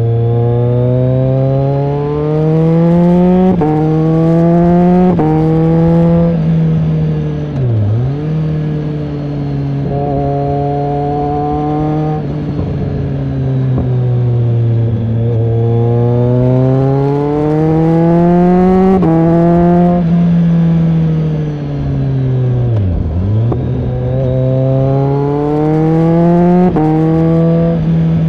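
BMW K1300R's inline-four engine through an AC Schnitzer aftermarket exhaust, accelerating through the gears. The pitch climbs and drops back at each quick upshift: three in a row in the first six seconds, then more in two later runs. Twice the revs dip sharply and come straight back up.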